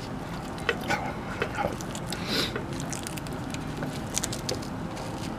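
Plastic pizza cutter pressed down through a baked pizza's crisp crust on a metal pizza pan: scattered crunches and light clicks, with one longer crunch about two and a half seconds in.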